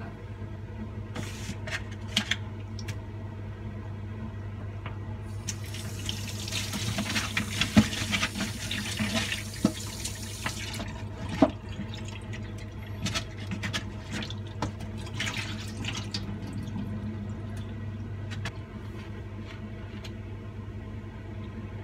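A tap runs into a stainless-steel kitchen sink for about five seconds while raw pork steaks are rinsed, starting about five seconds in. Before and after it come scattered knocks and clatter of the meat tray and bowl being handled, over a steady low hum.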